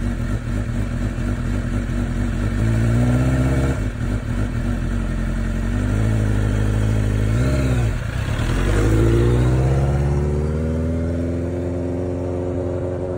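Sport motorcycle's engine revving up in several rising surges, each broken by a brief drop in pitch, as the bike pulls away and accelerates. It settles to a steadier, lower note near the end as the bike rides off.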